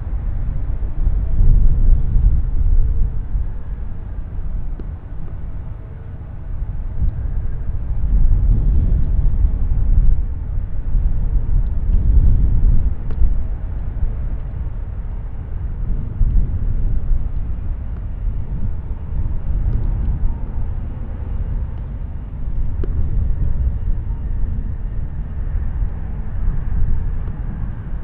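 Jet airliner rumbling on landing approach: a loud, low rumble that swells and fades several times, with a faint steady tone above it.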